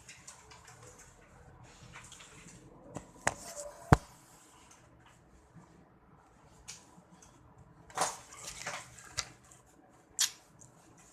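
A few scattered clicks and knocks over a low background, the loudest a sharp knock about four seconds in, with a short cluster of them about eight seconds in.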